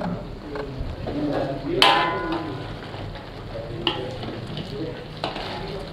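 A metal spoon stirring chicken korma in a pot on the stove, with a low sizzle and a few clanks of the spoon against the pot, the loudest and ringing about two seconds in.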